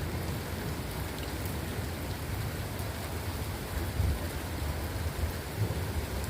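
Steady rain falling, with a low rumble of thunder underneath that swells about four seconds in.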